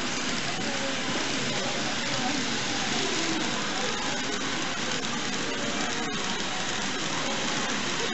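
N-gauge model train of blue passenger coaches rolling along the layout's track: a steady rattling hiss of small wheels on rail.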